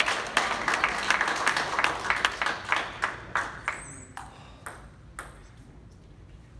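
Spectators clapping after a point, the applause dying away over about three seconds and ending in a few scattered claps.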